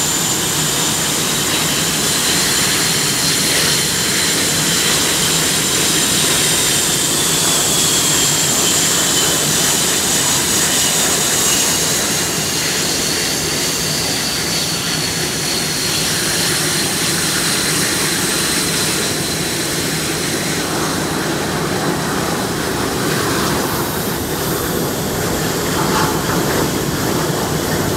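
Twin-engine F/A-18 Hornet jets taxiing past one after another, their turbofan engines giving a high whine that wavers up and down in pitch over a steady rush of jet noise. The whine weakens somewhat in the second half.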